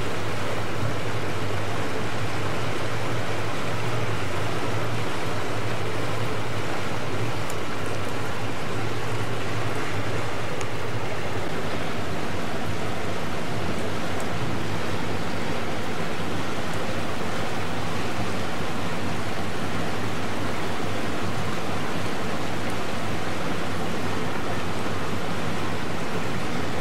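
Steady hiss of rain falling on the river and the water washing past a slow-moving river cruise boat, with the low hum of the boat's engine underneath, stronger in the first few seconds.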